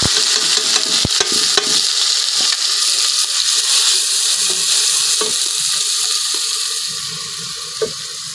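Food sizzling loudly in hot oil in a cooking pan, with the scrape and click of a utensil stirring it. The sizzle slowly dies down.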